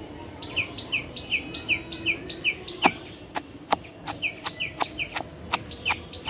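A small bird calling in a quick, steady run of short falling chirps. From about halfway in, a wooden pestle knocks down into a wooden mortar of chopped cucumber and unripe jujubes, about three strokes a second, mashing them.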